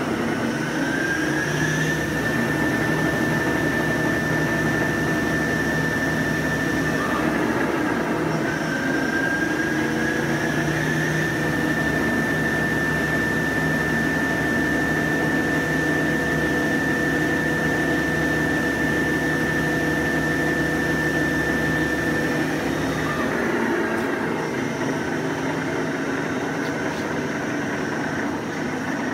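Dainichi BX45 CNC lathe running a demo cycle: a steady high whine over a low hum. The whine climbs in pitch about a second in, dips and climbs again around 8 to 11 seconds in, then holds until the whine and hum stop about 23 seconds in.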